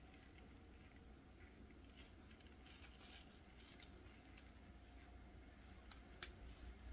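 Faint handling of small plastic keychain-puzzle pieces by gloved fingers: scattered soft clicks and rubs, with one sharper click about six seconds in.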